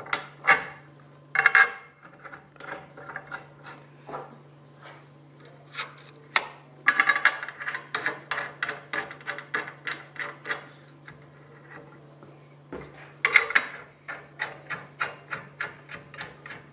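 Steel bolts and hold-down bars clinking as bolts are set and nuts threaded on by hand. There are a few louder clanks in the first couple of seconds, then runs of quick, even metal clicks at about four a second in the middle and again near the end.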